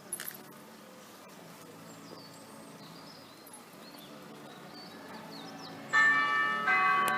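Two strokes of electronically simulated church bells played through loudspeakers, less than a second apart near the end, ringing on after each strike: the start of the hour-strike on the fifth and sixth bells.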